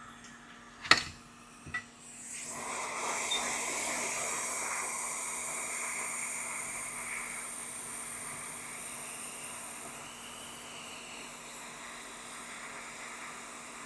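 A sharp click about a second in, then a hot air rework station blowing a steady hiss of air from about two seconds in, heating the circuit board to desolder a MOSFET.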